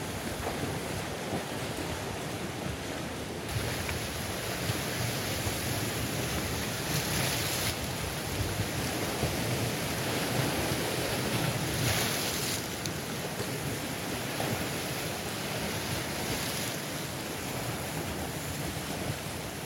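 Sea surf washing in and breaking over rocks, a continuous rush of foaming water that swells louder a few times as bigger waves come in.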